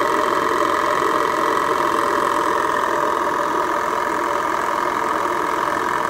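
Small live-steam model steam engine running steadily at speed on about 1 bar of boiler pressure, a fast even patter of exhaust beats with steam hiss.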